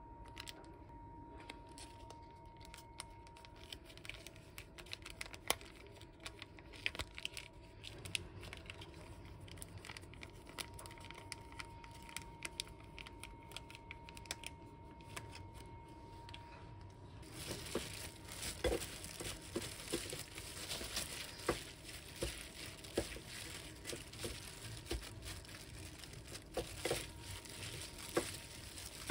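Plastic crinkling and tearing as a bibimmyeon sauce packet is handled, torn and squeezed. About seventeen seconds in, the crinkling grows much louder with many sharp crackles as a disposable plastic-gloved hand mixes the noodles with the sauce.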